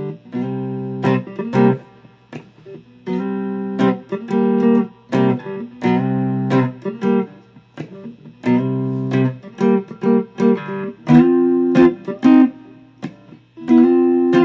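Electric cigar box guitar, a hybrid solid-body build, played with chords strummed in short rhythmic stabs and longer held strums with brief gaps between them. A steady low hum runs underneath.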